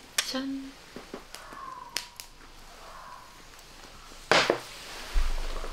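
Two small soju glasses clink together in a toast, followed by scattered small clicks of tableware. A loud, brief sound comes about four seconds in.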